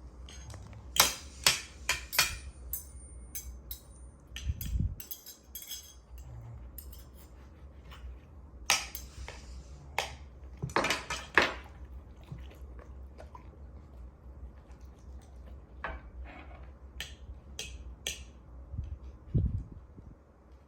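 Chocolate Labrador retriever eating from a dish: irregular clinks and knocks of the dish, in clusters at first and sparser later.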